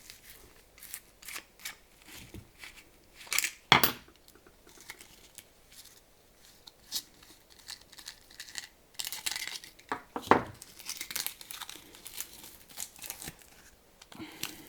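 Hands handling small homemade sanding discs and their parts: irregular clicks, light knocks and rustling, with louder bursts about four seconds in and again about ten seconds in.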